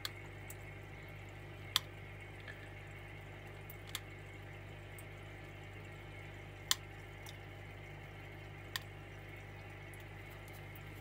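Aquarium equipment running with a steady low hum, while water drips sharply about every two seconds, five times in all.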